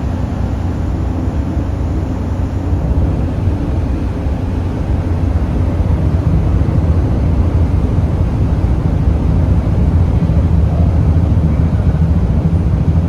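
Steady low engine drone of a car ferry under way, a deep hum with a rumbling noise over it that grows a little louder about five seconds in.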